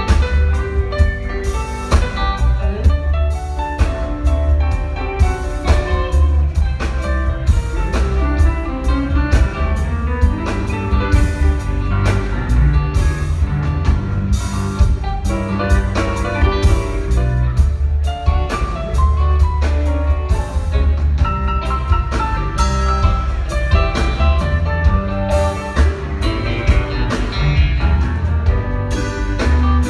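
Rock band playing live through an instrumental passage, with electric guitars, keyboards, bass and drums and no vocals. Heard from the audience, so the bass and drums boom heavily.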